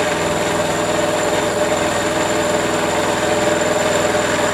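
Small milling machine with its end mill taking a light finishing climb cut across the ends of stacked 6 mm plates: a steady, even cutting drone over the spindle's running, holding one strong mid-pitched tone.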